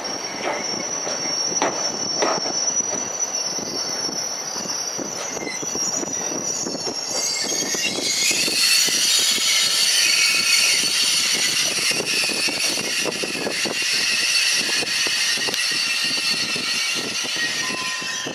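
AGC bimode railcar (B 82500 'BiBi') moving slowly along curved station track, its wheels squealing against the rails. A few knocks are heard early on, and about eight seconds in the squeal grows much louder and shriller, several high tones at once.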